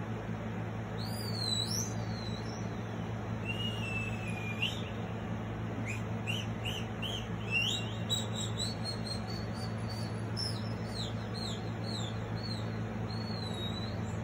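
Recorded birdsong played through a phone speaker: a run of high chirps and whistled notes, some rising and some falling, over a steady low hum.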